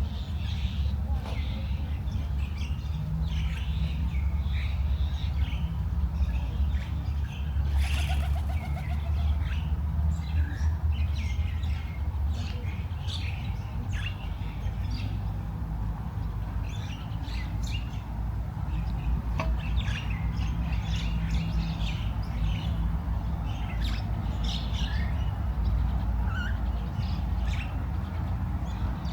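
Many small birds chirping and twittering in short, scattered calls, over a steady low rumble.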